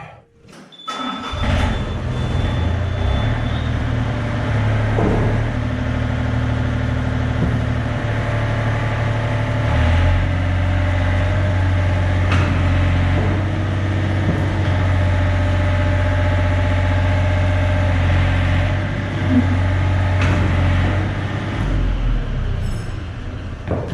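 Yanmar mini excavator's diesel engine starts about a second in and runs steadily, with a high steady tone sounding over it for the first few seconds. About ten seconds in the engine note changes and grows a little louder, easing back near the end.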